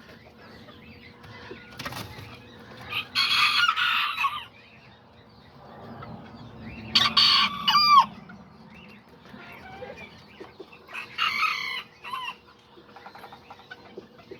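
Kikiriki roosters crowing three times, each crow about a second long, with hens clucking softly in between.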